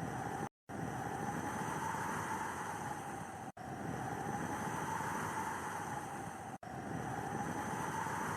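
Steady rushing snowstorm wind with a faint whistling pitch in it, broken by brief drops to silence about every three seconds.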